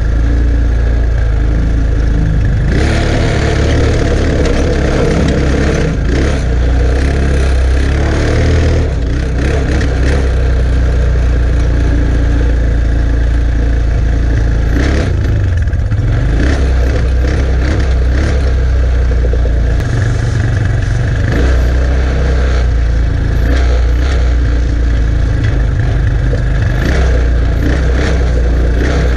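A Chinese 150 cc ATV engine running under load as it tows a trailer full of logs over a rough track, rising and falling with the throttle. Knocks and rattles come from the towed trailer over the bumps.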